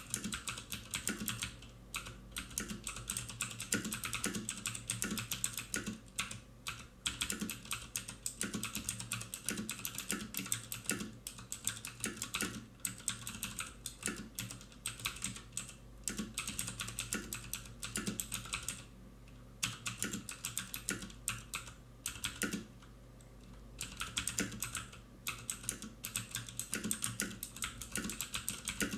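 Continuous typing on a HyperX Alloy FPS mechanical keyboard with Cherry MX Red linear switches: a rapid, uneven stream of key clacks, with a couple of short pauses in the last third.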